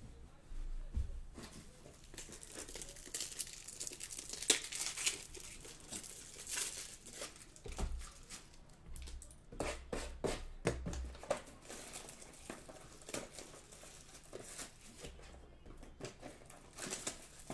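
Card-box packaging and pack wrappers crinkling and tearing, with irregular crackles and handling clicks, as a box of 2020 Panini Select football cards is opened and its packs pulled out.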